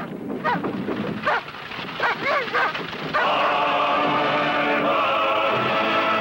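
A small dog barking and yelping several times in short, separate calls. About three seconds in, orchestral music with brass begins and carries on steadily.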